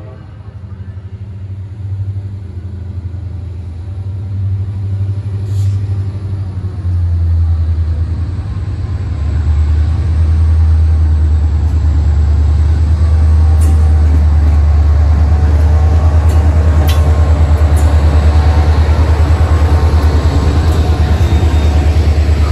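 Diesel freight train, led by a CSX locomotive, approaching and passing. Its rumble grows louder over the first ten seconds, then holds steady as covered hopper cars roll by, with a few sharp clicks from the wheels on the rails.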